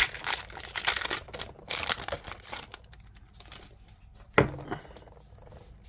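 Foil Pokémon booster pack wrapper crinkling and crackling as it is handled and opened, a dense run of crackles for the first few seconds, then softer handling and a single short knock near the end.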